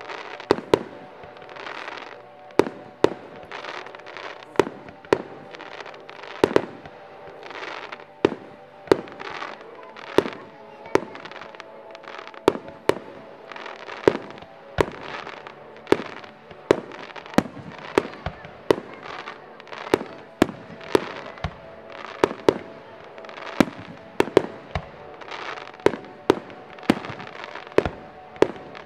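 Fireworks display: aerial shells bursting one after another in sharp bangs, about two a second, with a haze of noise between them. The bangs come quicker right at the end.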